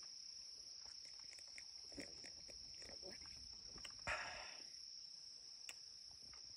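Faint steady insect song, a continuous high trill like crickets, with a few soft clicks and a brief soft noise about four seconds in.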